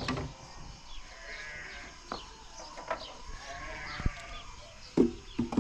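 Sheep or goats bleating twice in the background, each call drawn out for about a second, over sharp knocks of wooden beehive frames being handled and set down, the loudest knocks near the end.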